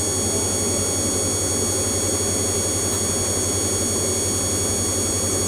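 Steady drone of a Diamond light aircraft's piston engine and propeller, heard inside the cockpit in flight, with a steady high whine over it.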